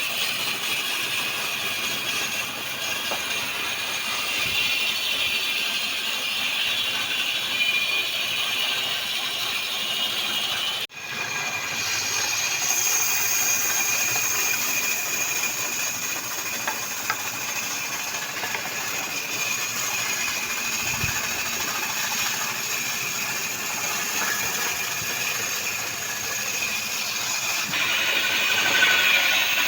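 Sawmill machine running steadily, a continuous mechanical noise with a strong high hiss. It drops out suddenly for an instant about eleven seconds in.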